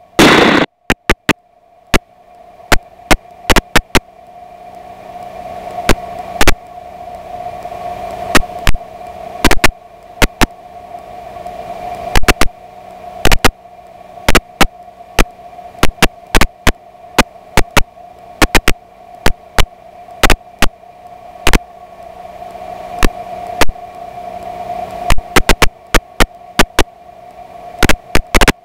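Crackling static on the aircraft's intercom recording: many loud, irregular clicks over a steady hum and hiss.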